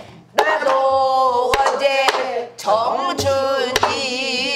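A woman singing in pansori style, with long held notes that waver in pitch. A buk barrel drum is struck with a stick a few times to mark the beat.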